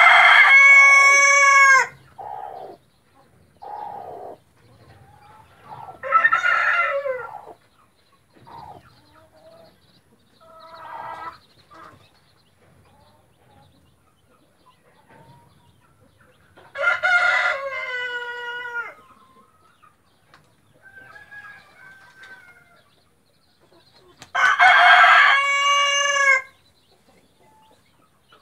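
Rooster crowing three times, each crow about two seconds long with a falling end, with softer clucking calls in between.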